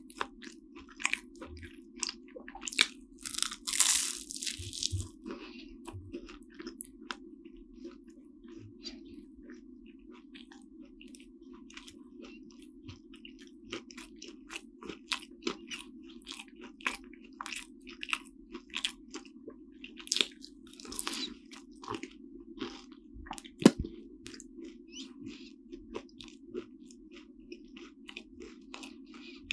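Biting and chewing flaky croissant pastry, close-miked: crisp crackles as the baked layers break, with dense bursts of crunching about four seconds in and again around twenty seconds.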